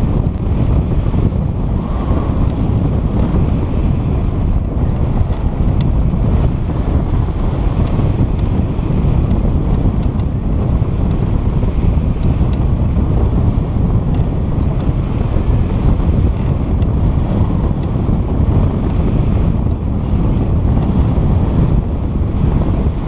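Loud, steady wind buffeting the microphone, with a few faint brief ticks.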